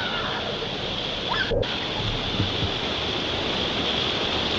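Waterfall: the steady noise of falling water.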